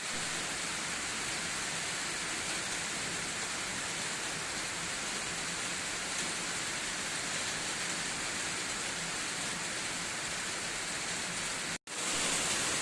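Heavy rain falling steadily, an even dense hiss. It cuts out for an instant near the end and comes back a little louder.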